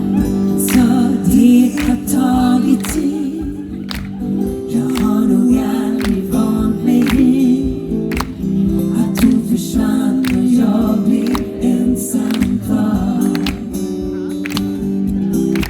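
Live pop performance: a wavering sung melody over strummed acoustic guitar chords.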